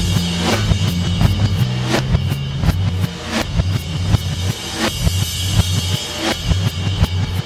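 Instrumental passage of a rock song: a steady drum beat with bass and guitar, no singing.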